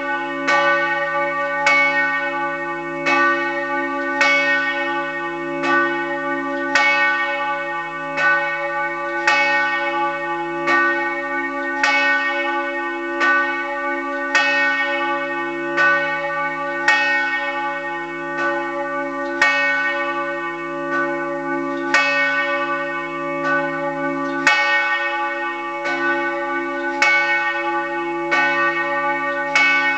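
The large church bell Peter, cast in 1930 by the Fischer brothers in Trnava and tuned to C-sharp, swinging in full peal for a funeral toll. Its clapper strikes the rim in a steady, even series, and each stroke rings on into the next over a continuous hum.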